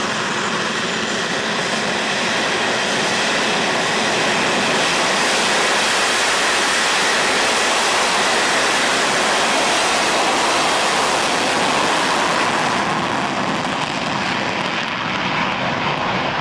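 Twin Rolls-Royce Avon turbojets of an English Electric Lightning F.6 running at high power on the ground, a loud steady jet roar that builds over the first few seconds, with reheat lit by the end.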